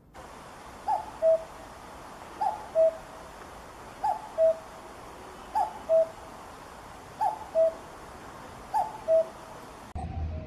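Common cuckoo calling "cu-ckoo" six times at an even pace, about one call every one and a half seconds. Each call is a higher note followed by a lower one, over a steady hiss. Near the end the recording cuts to a different one with a low rumble.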